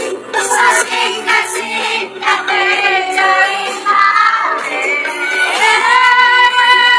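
A male singer singing live into a microphone over a dangdut band, heard through the stage PA.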